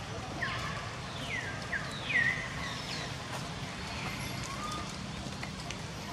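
A run of short, high animal calls, each sliding down in pitch. Several come close together in the first two seconds, and the loudest comes about two seconds in. A lower call follows near the end, over a steady low hum.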